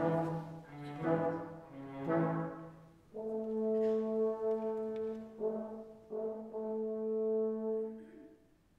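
Live theatre pit orchestra playing slow, dramatic music: three swelling chords about a second apart, then long held brass chords, re-struck twice and dying away near the end.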